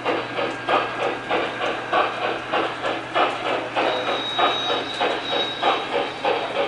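Lionel O-gauge EM-1 2-8-8-4 steam locomotive model pulling a freight train: its onboard sound system gives a steady, rhythmic steam chuff over the rolling of wheels on three-rail track, with a low hum underneath. A thin, high steady tone joins in about four seconds in.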